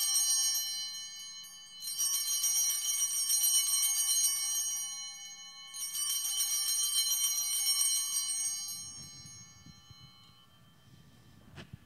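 Altar bells (Sanctus bells) shaken at the elevation of the consecrated host, a bright jingling ring in three rounds. One round is already sounding, another starts about two seconds in and a third about six seconds in, and the ringing dies away by about ten seconds.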